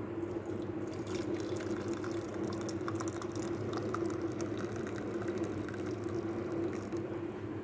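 Herbal qehwa being strained and poured from the pot into a cup: a steady run of liquid with small drips and ticks.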